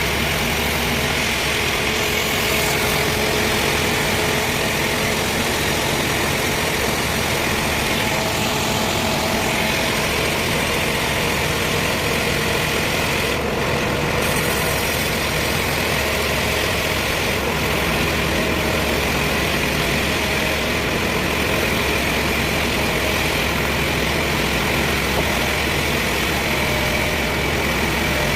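Sawmill machinery running steadily, an even engine-like drone that holds at the same level without pause.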